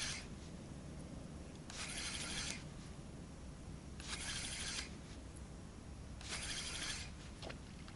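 Spinning reel cranked in short bursts of a few handle turns, three times about two seconds apart, with pauses between: a stepped jig retrieve.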